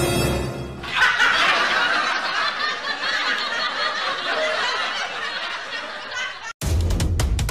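Laughter, a run of snickering and chuckling lasting about six seconds, slowly fading and then cut off suddenly. Drum music starts right after the cut, near the end.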